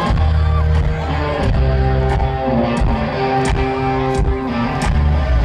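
Live rock band playing over a festival sound system: electric guitar, bass and drums, with a drum hit about every 0.7 seconds.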